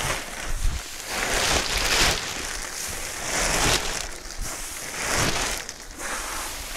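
Dry chopped straw and a clear plastic bag rustling and crinkling as handfuls of straw are pushed into the bag, coming in several uneven swells.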